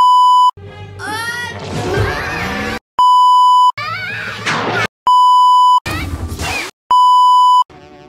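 TV colour-bar test-tone beep, a steady 1 kHz tone, sounding four times for about three-quarters of a second each. Each beep cuts off sharply. Short snatches of cartoon music and sound effects with sliding tones fill the gaps between the beeps.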